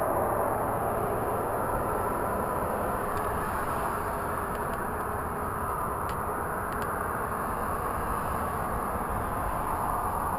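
A steady rumbling roar from the sky, a continuous drone with no clear pitch that holds level throughout.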